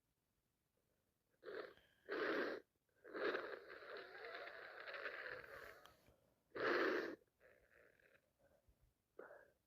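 A woman with a cold and sinusitis making wheezy, gasping breaths: two short gasps, a long wavering drawn-out breath, then another sharp gasp, with faint sniffles after it.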